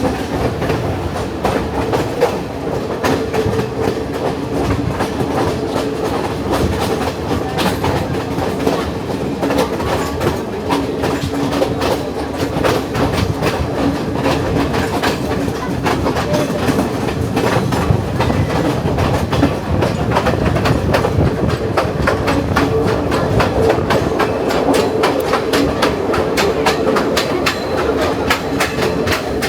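Passenger train running, heard from aboard: wheels clicking over the rail joints in a quick, uneven patter over a steady low drone.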